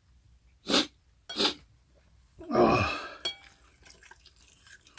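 A man's two short, sharp breath sounds, then a loud vocal exhale whose pitch falls steeply, and a light click just after it: his wordless reaction while eating spicy cold bibim noodles.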